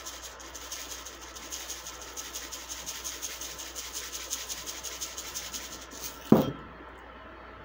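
Gold sprinkles rattling in a small plastic shaker jar as it is shaken over a bowl, a fast, steady rattle. About six seconds in there is a single sharp knock, the loudest sound, as the shaker is set down.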